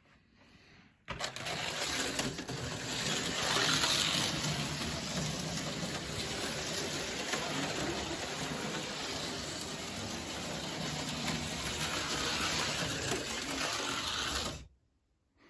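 Matchbox PowerTrack slot cars running on a plastic track: a steady whirring rattle of their small electric motors and wheels, starting abruptly about a second in and cutting off suddenly near the end.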